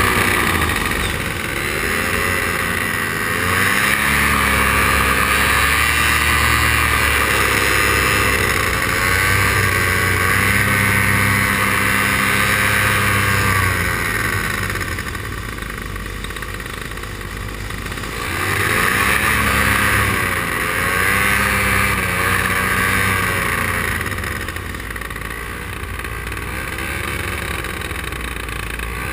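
Paramotor engine and propeller running in flight, the throttle easing and opening again so the pitch dips and rises a couple of times, with the engine quieter for a few seconds past the middle and again near the end.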